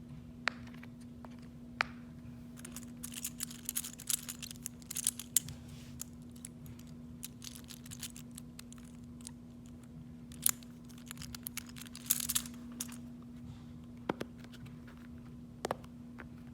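Small plastic fidget toys being handled: scattered sharp clicks and taps, with flurries of quick clicking about three to five seconds in and again near twelve seconds, over a steady low hum.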